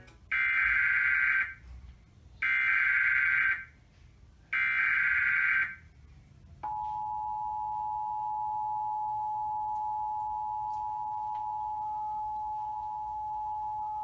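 Emergency Alert System broadcast: three bursts of about a second each of the SAME digital header, a harsh buzzing warble, then about 6.6 s in the steady two-tone EAS attention signal begins. Together they announce an incoming alert, here a flash flood warning.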